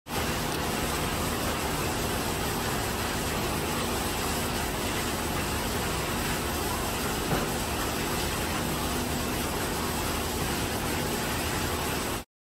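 Steady mechanical hum and hiss, like air conditioning or ventilation running, with one faint click about seven seconds in.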